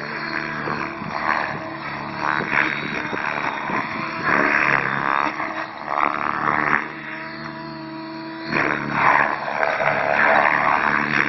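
Align T-Rex flybarless RC helicopter flying aerobatics: its rotor and drivetrain whine steadily while the blades give repeated rushing surges as it pitches and rolls. There is a quieter, steadier spell past the middle, then the surges return.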